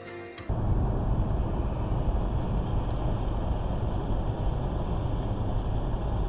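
Music cuts off about half a second in and gives way to steady road noise inside a car's cabin at highway speed, about 107 km/h: a constant tyre and engine rumble, heaviest in the low end.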